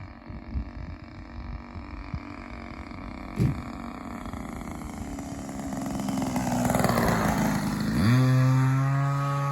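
A model airplane's small two-stroke gas engine passes low and close at idle, getting louder, then is throttled up sharply near the end and holds a steady, higher note. There is a brief knock about three and a half seconds in.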